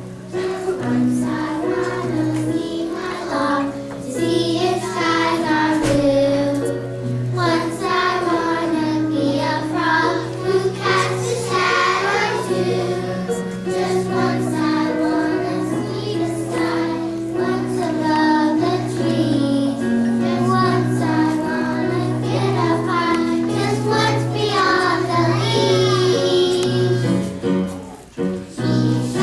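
A children's choir singing a song over an instrumental backing with a steady, pulsing low note, with a short dip in level near the end.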